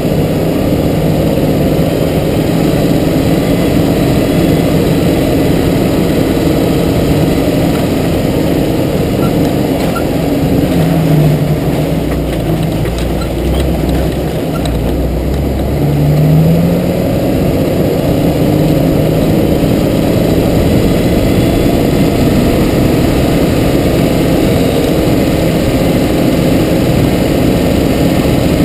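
Jeep TJ engine running steadily under way, the revs climbing briefly twice, about eleven and sixteen seconds in.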